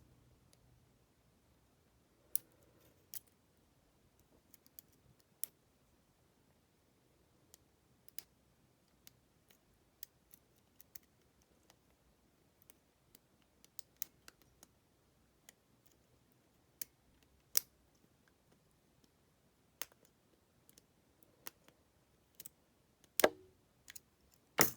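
Lock pick and tension wrench clicking irregularly inside a Master Lock brass laminated padlock as its pins are picked, with a few louder clicks, the loudest near the end.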